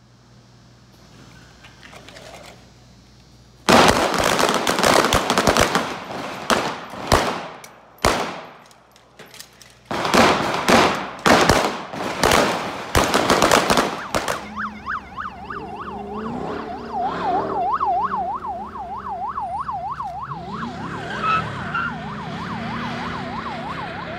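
Rapid gunfire from several weapons on a firing range, starting a few seconds in and lasting about ten seconds with a short pause partway. Then a police car siren on yelp, its pitch swinging quickly up and down, over the sound of the car.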